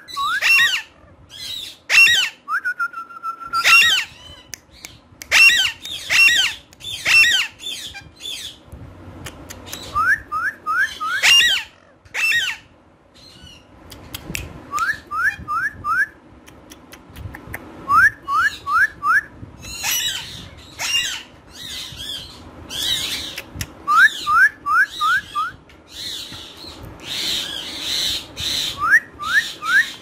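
Alexandrine parakeets calling: loud, harsh squawks mixed with quick runs of three or four rising chirps, and one short held whistle-like note about three seconds in.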